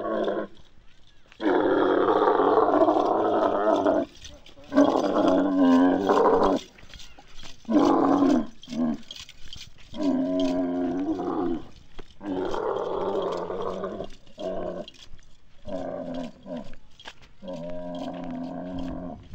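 Dromedary camel calling repeatedly: about eight long, loud calls, each lasting one to two and a half seconds, with short pauses between them and a wavering pitch.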